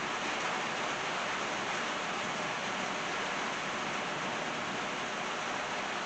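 Steady rain falling on a driveway and trees, an even hiss with no thunder.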